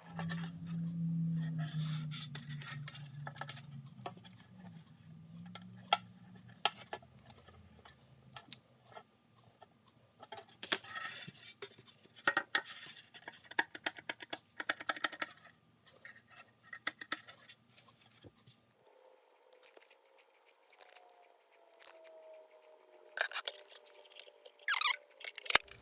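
Scattered light clicks, clinks and knocks of small metal objects being handled, over a low hum that stops about two-thirds of the way through.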